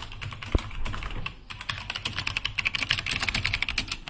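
Philips mechanical gaming keyboard with pink switches being typed on fast: a dense run of key clicks, quickening in the second half, with one heavier thump about half a second in.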